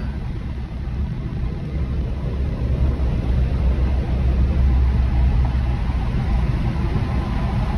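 Steady low rumble of road and engine noise inside a moving car's cabin on a motorway, rising a little from about three seconds in.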